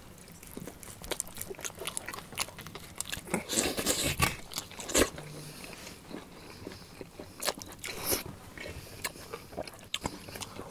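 Close-miked mukbang eating sounds: people chewing and biting into boiled organ meats, mixed with irregular clicks and scrapes of table knives cutting on metal plates. The loudest clicks come about four and five seconds in.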